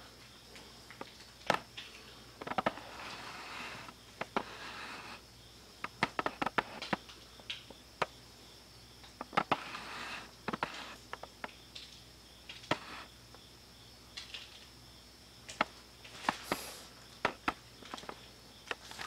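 Scattered light clicks and taps with short rustles, over a faint steady hum.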